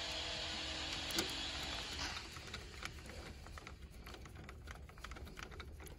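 Faint irregular clicks and ticks of a hand screwdriver turning a small screw into the metal housing of a circuit breaker's undervoltage trip coil. A steady hiss comes first, and the clicks follow from about two seconds in.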